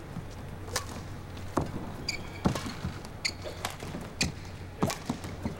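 Badminton rally: sharp racket strikes on the shuttlecock about once a second, with players' shoes squeaking on the court between shots.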